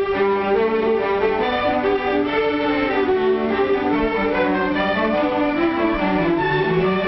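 Orchestral background score led by bowed strings, violins and cellos playing a melody in held notes.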